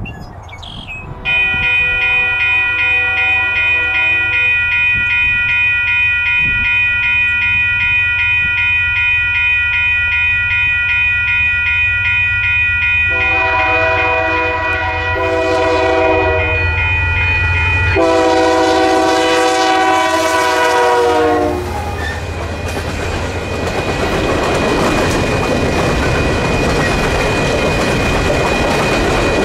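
Multi-tone air horn of a CP GE AC4400CWM diesel locomotive leading an empty coal train. It sounds from about a second in, first as one long blast, then as louder blasts with short breaks, ending about 21 seconds in, over the low rumble of the locomotive. After that the empty coal cars roll past with a steady rattle and clatter of wheels on rail.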